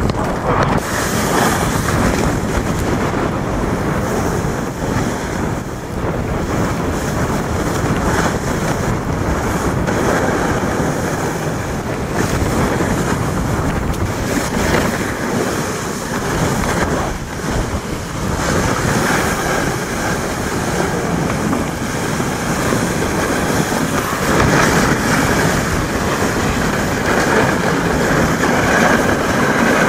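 Continuous loud rush of wind over the camcorder microphone, mixed with snowboards sliding and scraping over snow as riders descend the slope.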